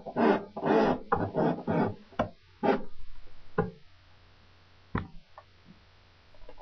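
A run of quick, loud thuds in the first two seconds, then a few sharp knocks spaced about a second apart.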